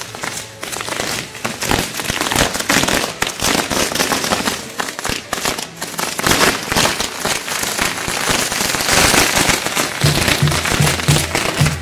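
A string of firecrackers going off in rapid, irregular cracks and bangs. Music with a steady beat comes in near the end.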